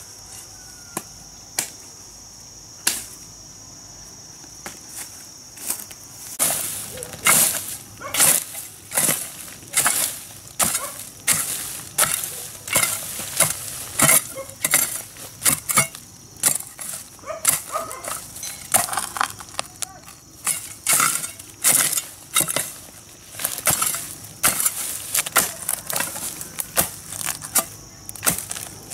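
Repeated chopping strikes: a few scattered knocks at first, then from about six seconds in a steady run of sharp strikes, roughly three every two seconds. A steady high whine sounds under them throughout.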